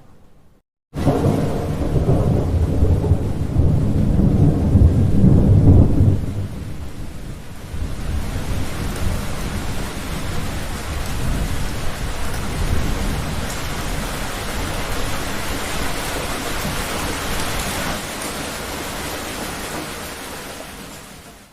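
Thunder rolling in abruptly about a second in, a deep rumble loudest for the first five seconds, then easing into steady heavy rain with a lower rumble underneath. The rain fades out near the end.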